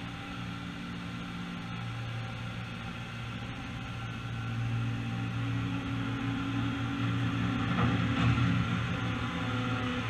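Diesel compact tractor engine running steadily, growing louder as the tractor drives up close alongside, loudest about eight seconds in.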